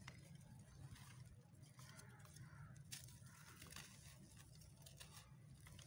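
Faint crumbling and crunching of dry white cement lumps broken and squeezed by hand, with small crackles and clicks as bits snap off and fall, over a low steady hum.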